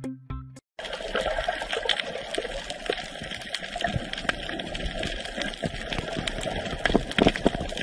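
Water noise picked up by an underwater camera: a steady hiss thick with crackling clicks, starting about a second in. A short tail of music comes before it.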